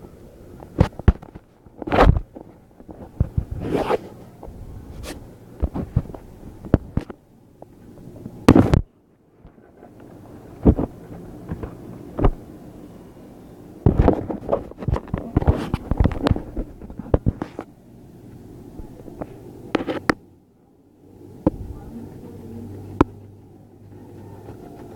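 Handling noise of paper sheets and the recording phone: irregular rustles, scrapes and sharp knocks, with the loudest strokes about two, four and eight seconds in.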